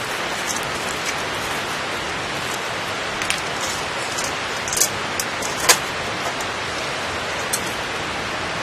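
Steady rain, an even hiss, with a few short sharp ticks scattered through it, the loudest a little before six seconds in.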